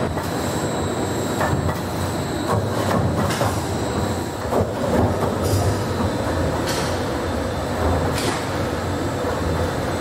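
Steel roll forming line running: a steady mechanical hum with a thin high whine, broken by irregular knocks.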